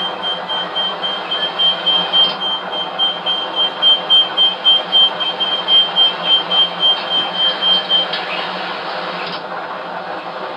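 Bus interior noise played back from onboard surveillance video, with a high electronic warning beep repeating about three times a second that stops about eight seconds in.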